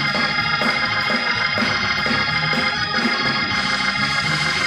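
Organ holding sustained chords as praise music in a church service.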